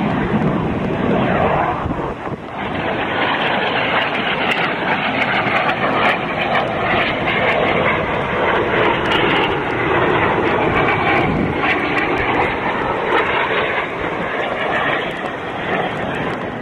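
Aero L-39 Albatros jet trainers' turbofan engines rushing loudly and steadily on a low display pass, with a brief drop in level about two seconds in.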